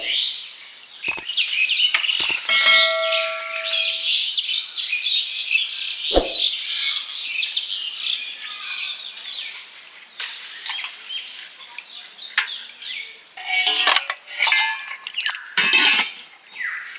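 Small birds chirping continuously, with a few sharp knocks of pots or utensils.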